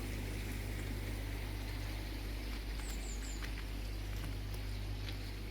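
Garden ambience: a steady low hum, with three quick, high, falling chirps from a small bird about three seconds in.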